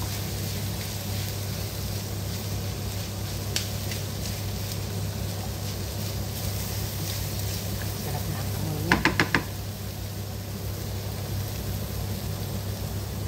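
Shrimp, onion and spices sizzling in a non-stick frying pan as they are stirred with a wooden spatula, over a steady low hum. About nine seconds in come four quick, sharp knocks.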